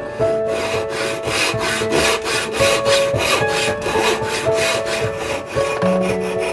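Dovetail saw cutting by hand into the end grain of a board in quick, even strokes, sawing the kerfs of a dovetail joint. Near the end the strokes grow lighter as a coping saw takes over to clear the waste between the cuts.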